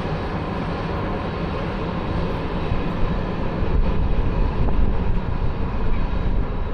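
Jet aircraft engines running at the airport: a steady rushing rumble that grows somewhat louder about halfway through.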